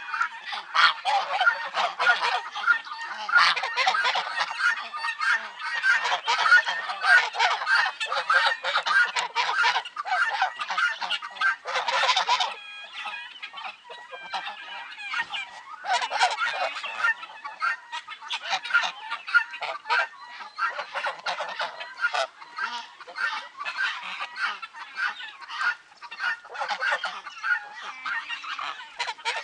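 A flock of geese honking and calling over one another almost without pause. The din is densest for about the first twelve seconds, then becomes more broken.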